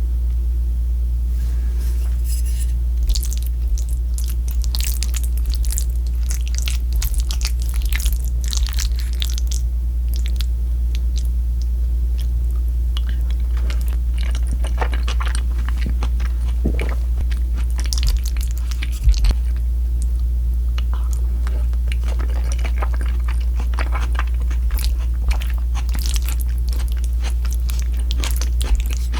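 Close-miked biting and chewing of crunchy battered fried pork, a dense run of crackling crunches coming in clusters, over a steady low hum.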